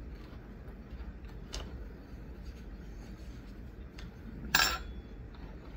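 Spoon and food packaging being handled at a table: a few faint clicks, then one brief, louder scrape about four and a half seconds in.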